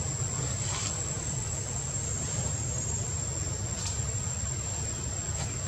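Steady high-pitched insect drone over a low, even background rumble, with a few faint clicks.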